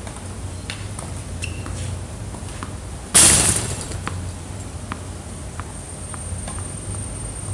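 Tennis ball being struck and bouncing on a hard court, heard as scattered sharp clicks, with one much louder sharp impact about three seconds in. A low steady hum runs underneath.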